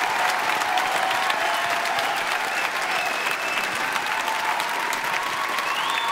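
A large audience applauding steadily, with a few voices calling out over the clapping.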